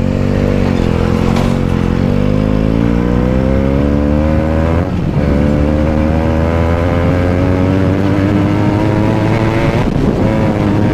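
Benelli TNT 300 parallel-twin engine with a changed exhaust, under way on the road: its pitch climbs steadily over several seconds as it pulls, then drops near the end.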